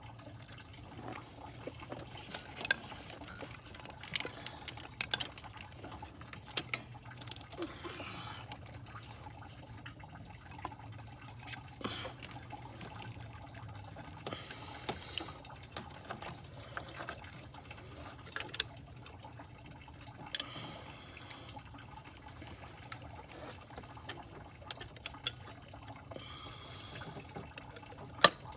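Engine coolant dripping and trickling as it drains, with scattered sharp metallic clicks and clinks of bolts and tools going onto the thermostat housing, the loudest click near the end.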